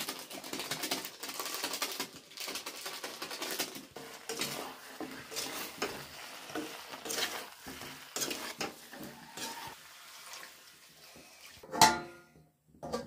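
A metal spatula scraping and clanking against a metal kadhai as masala-coated chicken pieces are stirred and fried, with light sizzling. Near the end comes one louder, briefly ringing metal clank.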